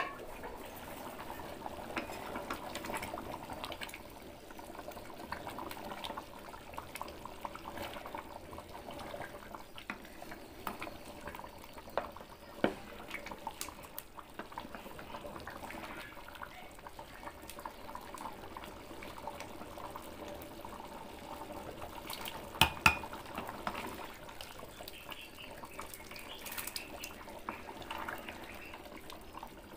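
Chicken curry bubbling as it simmers in a metal pot, with a wooden ladle stirring and now and then knocking against the pot; the loudest knocks come twice about three-quarters of the way through.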